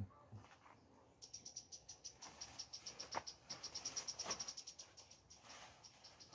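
Cricket chirping: a rapid, even series of high, thin pulses that starts about a second in and keeps going. A few soft rustles of leaves are mixed in.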